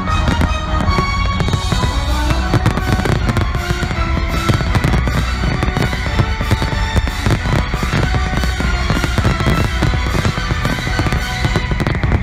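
Dense fireworks barrage: many shells bursting together in rapid bangs and crackling, with music playing at the same time.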